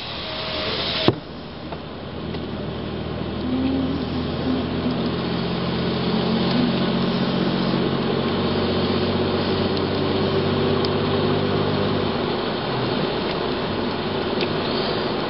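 A sharp click about a second in, then steady vehicle engine hum with several held tones under a constant hiss, as traffic passes on a wet road.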